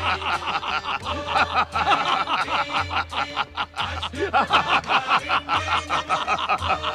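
Men laughing loudly in a rapid, sustained 'ha-ha-ha' of mocking villain laughter, over background music with a low pulse about once a second.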